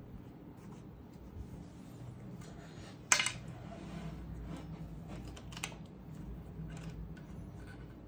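An Evo80 mechanical keyboard being handled: a few light scattered clicks and taps, a loud sharp click about three seconds in and another about five and a half seconds in.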